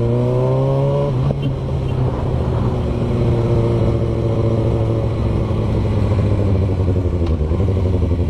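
Sport motorcycle engine accelerating: the revs climb for about a second, drop at a gear change, then the bike pulls on at a steadier pitch.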